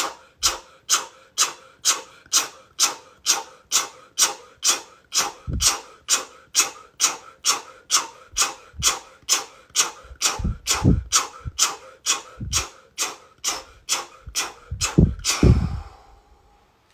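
A woman's short, forceful breaths blown out through rounded lips in a fast, even rhythm, about two and a half a second: a qigong cleansing breath for the kidneys, to release fear. A few dull low thumps come in among the breaths, loudest near the end, and the breathing stops about a second before the end.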